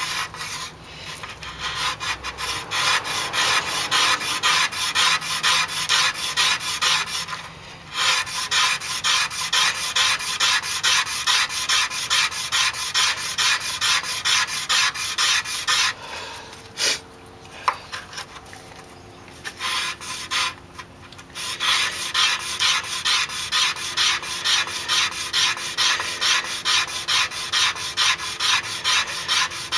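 Fire plow: a western red cedar plow stick scraped rapidly back and forth along a charred groove in a western red cedar board, wearing the wood into char dust to build a coal. The strokes run in a fast, even rhythm of about two to three a second, with a short pause about eight seconds in and a longer break of scattered softer sounds between about sixteen and twenty-one seconds.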